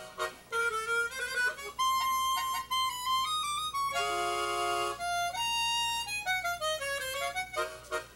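Harmonica played: a melody of single held notes, a long held chord about four seconds in, then a falling run of notes, with short rhythmic chugging chords coming back near the end.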